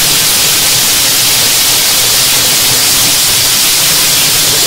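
Loud, steady wash of noise from a dense crowd, with no distinct voices or beats standing out.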